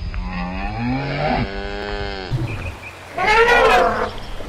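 Dairy cow mooing: one long, low moo lasting about two seconds. About a second later comes a second, shorter and higher-pitched animal call.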